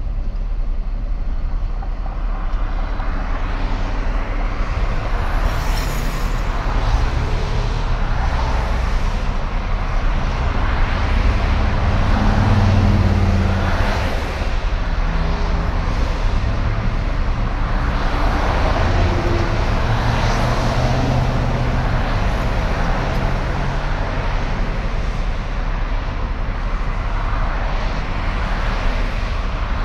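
Road traffic at a busy intersection: cars and trucks driving through, a continuous mix of engine hum and tyre noise that swells as vehicles pass, loudest about twelve seconds in.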